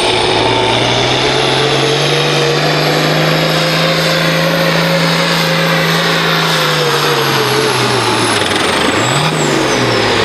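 Diesel pulling tractor at full throttle dragging a weight-transfer sled, its engine note holding steady and then dropping in pitch near the end as it pulls down under the load, with a short rev just after. A high whine rides on top and falls away with the engine.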